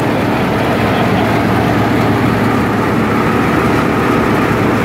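Wheat thresher running steadily while threshing, a dense, unbroken mechanical noise over a constant low hum.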